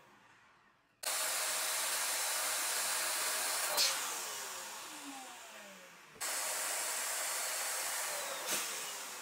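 Air rushing out of latex party balloons as they deflate: two loud hisses that start suddenly, about a second in and again about six seconds in, each fading slowly as the balloon empties, with a squeal that falls in pitch and a brief click partway through.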